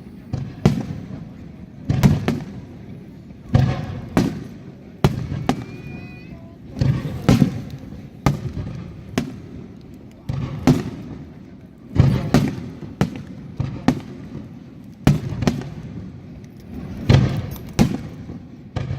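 Aerial fireworks shells bursting in a steady barrage: a sharp bang every second or so, each trailing off in a rumbling echo.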